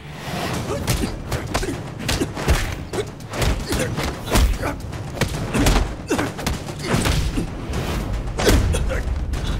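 Hand-to-hand fight sound effects: a rapid run of punches and blows landing with dull thuds, with whooshes of movement and short grunts in between.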